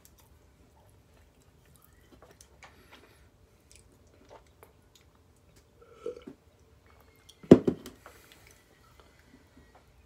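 Chewing a burrito with soft wet mouth clicks, then drinking water from a metal bottle, with a short burst of drinking sound about six seconds in and a louder sharp one about a second and a half later.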